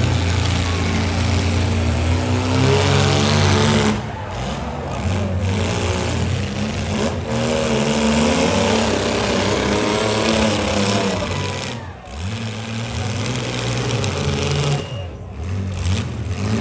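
Demolition derby car engines running and revving, their pitch rising and falling again and again over a steady low drone.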